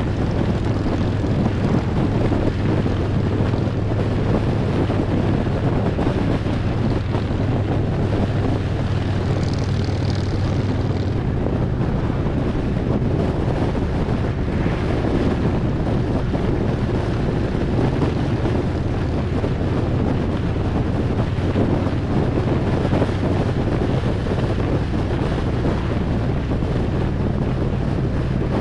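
Harley-Davidson Road Glide's V-twin engine running steadily at cruising speed, with wind rushing over the microphone. The engine note shifts slightly about eleven seconds in.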